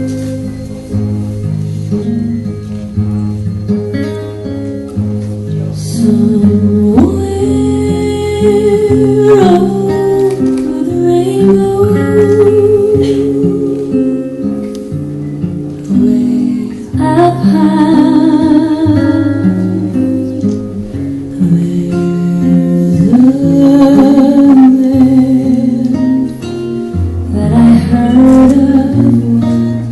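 A song with a singer's voice over guitar and a steady bass line, in sung phrases separated by instrumental stretches.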